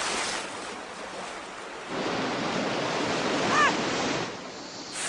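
Rushing, wind-like noise in a cartoon soundtrack, swelling twice, with a short high squeal about three and a half seconds in.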